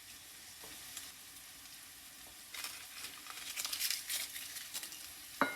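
Tomato sauce with mushrooms and shrimp sizzling in a pot, a faint steady hiss. Partway through comes a stretch of crackling and rustling, and near the end a single sharp knock.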